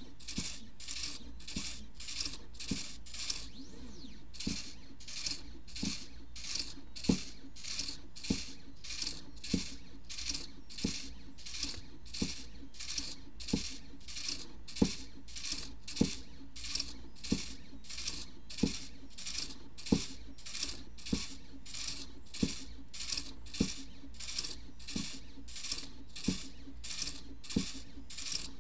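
midTbot ESP32 pen plotter drawing short hatching strokes with a white gel pen on paper. Each stroke is a quick scratchy swish with a light knock, repeating evenly about one and a half times a second, with a brief pause about four seconds in.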